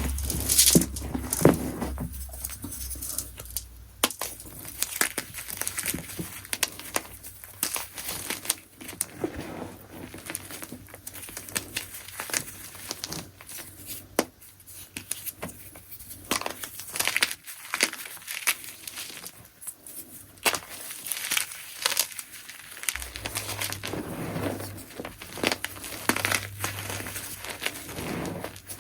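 Chunks of gym chalk being crushed by hand, an irregular run of soft crunches and sharp crackles as the blocks crumble to powder.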